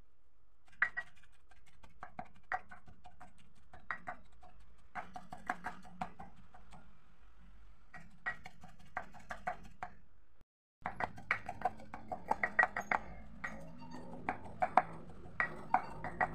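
Stone pestle pounding frog meat in a stone mortar, making frog chili paste: irregular knocks, each with a short ring. A brief drop to silence about ten seconds in, then a faster run of strikes.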